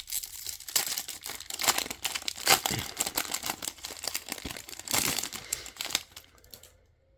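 Plastic trading card pack wrapper crinkling and tearing as a pack is ripped open and handled, a dense crackle that dies away shortly before the end.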